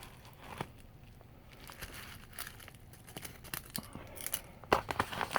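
A package being opened by hand: packaging crinkling and tearing in scattered crackles, getting much louder and busier near the end.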